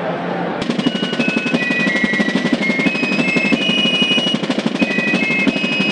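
Music cuts in suddenly about half a second in: rapid drumming under a high melody of held notes that step up and down in pitch.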